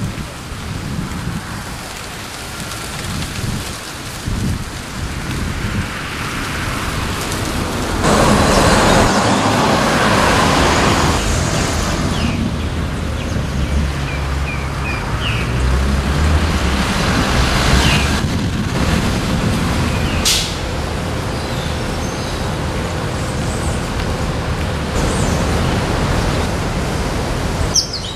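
Outdoor background noise: a steady rushing haze with an uneven low rumble, jumping louder about eight seconds in and dropping back about twelve seconds in, with a few short high chirps.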